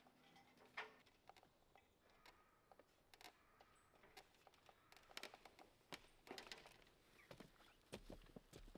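Faint knocks and steps of someone climbing a metal ladder and stepping onto a corrugated tin roof, with scattered light clicks that come more often in the second half.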